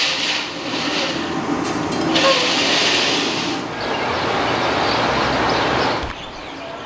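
Steady loud rushing noise of wind in the open air, dropping sharply quieter about six seconds in.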